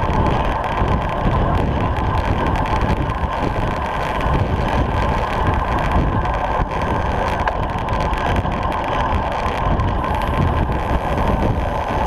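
Wind rushing over a rear-mounted GoPro's microphone and road-bike tyres humming on tarmac at around 25 to 30 mph, steady throughout with small ticks and knocks from road vibration.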